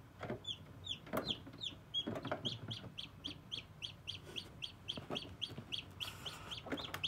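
Newly hatched chick peeping: short falling high-pitched peeps repeated about three times a second, beginning just after the start, with a few soft bumps and rustles in the first couple of seconds.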